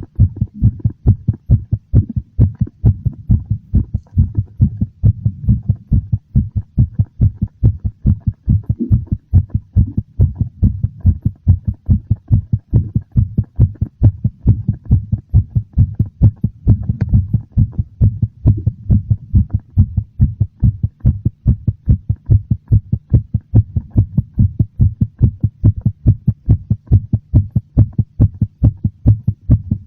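Human heartbeat, a slightly fast and very noticeable series of low, dull thuds beating in a steady, even rhythm.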